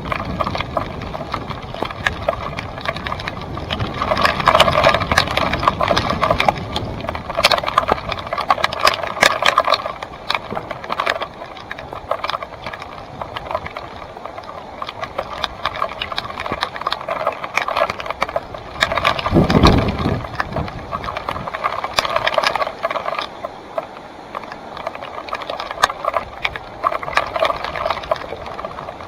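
2017 Salsa Timberjack NX1 mountain bike rattling and clicking steadily as it is ridden over a rough dirt trail, with one dull thump about twenty seconds in.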